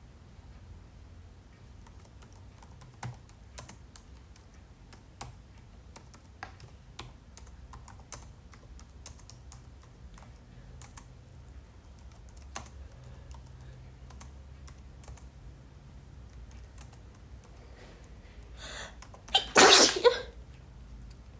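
Computer keyboard typing in scattered, irregular keystrokes, then a short breath in and one loud sneeze near the end, a sneeze from a head cold.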